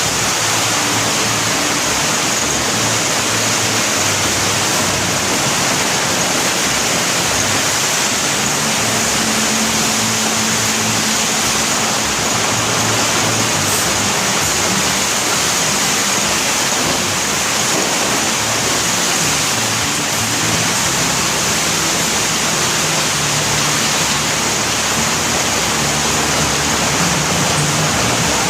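Bread production line machinery running: a steady, loud rushing noise, with a faint low hum that comes and goes.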